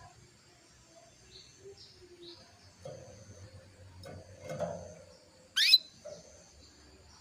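Female domestic canary calling in short, sparse chirps, one of them loud and sharply falling a little past halfway. These are the calls of a hen in breeding condition, used to lure males into song.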